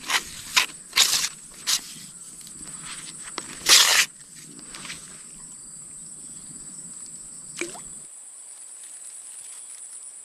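Crickets trilling steadily at a high pitch. Several brief rustling noises come in the first four seconds, the loudest about four seconds in.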